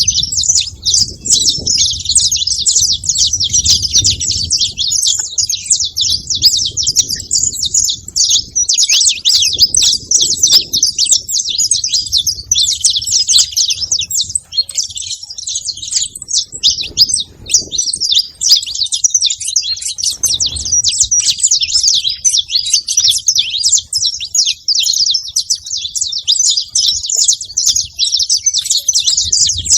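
Saffron finches chirping in a dense, unbroken chatter of short, high-pitched calls that overlap throughout, with a faint low rumble underneath.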